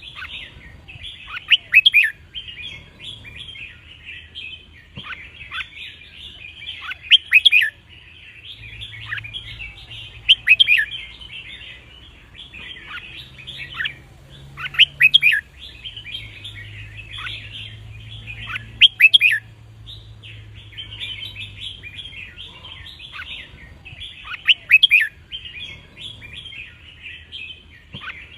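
Red-whiskered bulbuls singing: a continuous twittering chatter with loud, clear song phrases breaking through about every two to three seconds.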